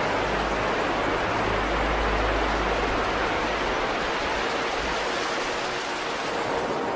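Ocean surf washing onto a sandy beach: a steady, even rushing of breaking waves.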